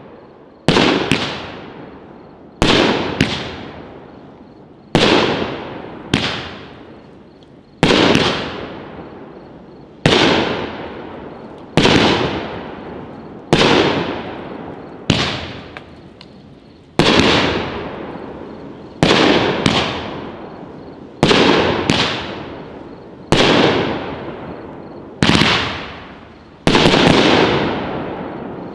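A 16-shot 500-gram consumer fireworks cake (Heavyweight Fireworks Ariel Gold) firing shot after shot: a sharp bang about every two seconds, some doubled, each trailing off over a second or so before the next.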